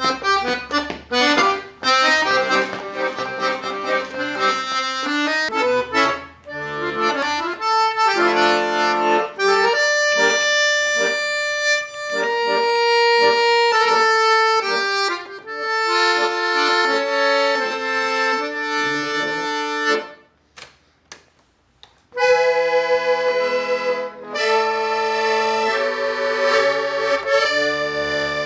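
An accordion played solo: a run of quick notes over bass chords, then held melody notes, breaking off for about two seconds before playing resumes.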